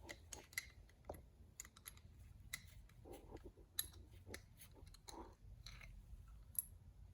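Scattered small clicks and taps of a screwdriver and small metal parts as jets are unscrewed from a 34 PICT-3 carburetor being stripped for cleaning, with a few soft rustles between them. The clicks come irregularly, and the sharpest are a little before four seconds in and near the end.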